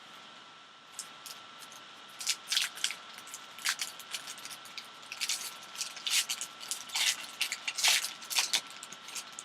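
Plastic wrapping being crinkled and torn open on a sealed box of trading cards, in a run of short sharp crackles starting about a second in and going on until near the end. A faint steady tone and hiss sit underneath.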